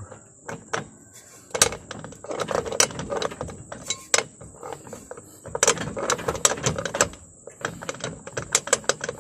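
Pickup propeller shaft (long shaft) handled and rocked at its coupling bearing, giving irregular bursts of metallic clunks and rattles. The coupling bearing is destroyed, which lets the shaft clunk at every gear change.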